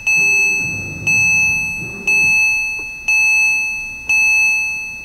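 Porsche Cayman 987 instrument-cluster chime dinging once a second, each bell-like ding fading before the next, sounding while the cluster runs its electronic oil-level measurement countdown.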